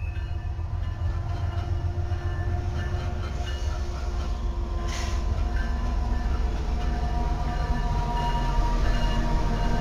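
Several Norfolk Southern diesel freight locomotives running past at low speed: a steady low engine rumble with a faint steady whine above it, slowly growing louder. A brief hiss about five seconds in.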